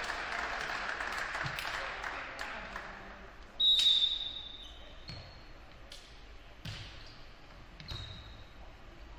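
Applause dies away over the first few seconds. Then a referee's whistle blows once, a short shrill blast and the loudest sound, signalling the serve. The volleyball is then struck several times in sharp smacks, with a couple of fainter short high squeaks in between.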